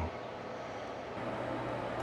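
Combination air conditioner and heater unit running: a steady whir of air with a low, even hum.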